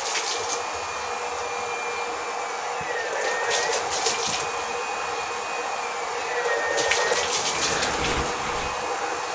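STEC 180 W 12 V DC water pump running with a steady whine and rush of water. Every three seconds or so its pitch dips and a burst of splashing comes: the pump is surging on and off because the water in the line is not yet full.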